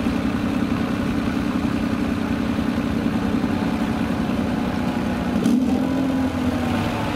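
Off-road trial vehicle's engine idling steadily, briefly picking up a little about five and a half seconds in.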